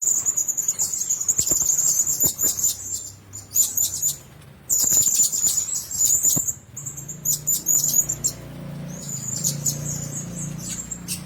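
Blue-crowned hanging parrot giving rapid runs of high-pitched, thin chirps, with a short break in the middle and sparser calls in the last few seconds.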